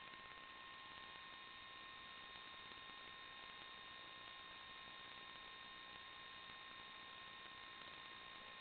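Near silence: a steady faint hiss with a few constant high whine tones, an unchanging electrical noise floor with no motor or wind sound heard.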